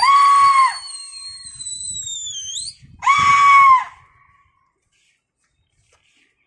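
Shrill human calls and whistling to a flock of flying pigeons: two loud drawn-out cries, each under a second, about three seconds apart, over a long high whistle that slides slowly down in pitch through the first two and a half seconds.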